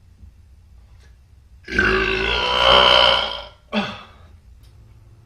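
A long, loud burp of about two seconds, swelling and then fading, followed by a short second sound.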